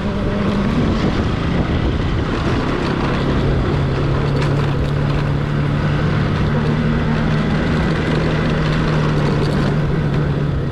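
Motorcycle engine running steadily while riding, its note stepping up slightly about four seconds in and holding, over a steady rush of wind noise.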